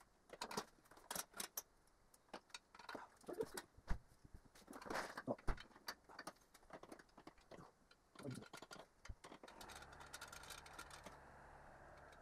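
Hand tools clicking and clinking against metal in a car's engine bay, in irregular sharp knocks. A faint steady hum comes in near the end.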